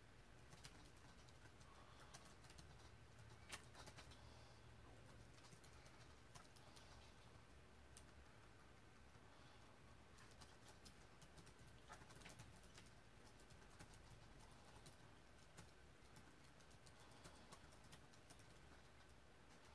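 Near silence: faint room tone with scattered light clicks.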